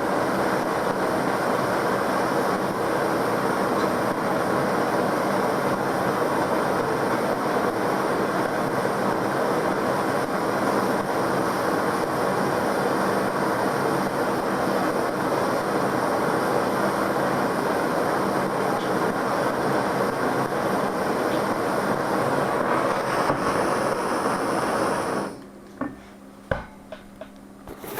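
Steady rushing roar of a gas torch flame heating a fireplace insulation board, which cuts off abruptly about 25 seconds in, followed by a few sharp clicks and knocks.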